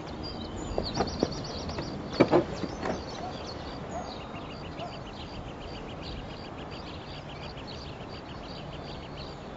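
Chirping in a summer field: short high chirps repeat steadily, about three a second, and about five seconds in a faster run of lower chirps joins them. A few sharp knocks in the first three seconds are the loudest sounds.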